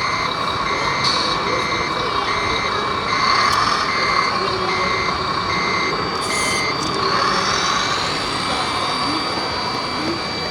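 Reverse-warning beeper of an RC truck's sound module, beeping evenly at a little under two beeps a second, then stopping about six and a half seconds in; a steady whine and hiss continue underneath.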